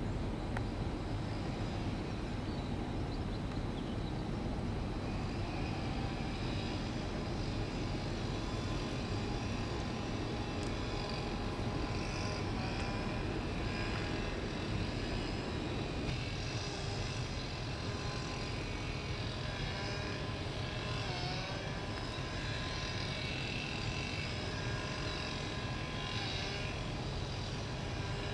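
Steady low drone of brewery machinery. From about five seconds in, birds chirp over it in many short, high calls.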